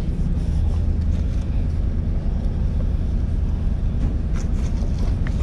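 Steady low drone of the ferry's engines heard inside the passenger cabin, with a few light clicks near the end.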